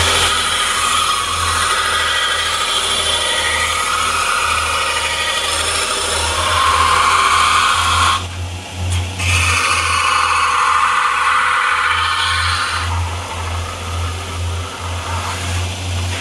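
Belt grinder running while the edge of a Kydex sheath is sanded against the belt: a steady motor hum under a grinding hiss that swells and fades as the plastic is pressed on. The grinding breaks off for about a second, eight seconds in.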